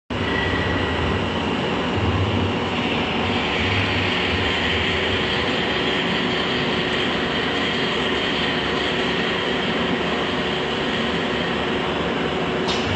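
CNC wood router running, a steady loud machine din with a high spindle whine and a lower steady hum, and a sharp click near the end.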